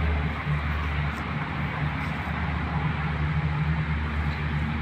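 A steady low motor hum over an even outdoor background hiss.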